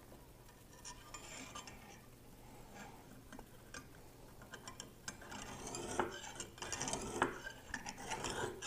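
Light metallic clicks and taps from the Lansky sharpening kit's clamp and honing-stone guide rod being handled. Faint rustling at first, then the clicks come more often from about five seconds in.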